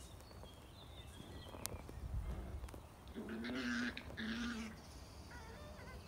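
Ratonero bodeguero andaluz puppies play-fighting, one giving two short growls a little past halfway, the first slightly longer than the second.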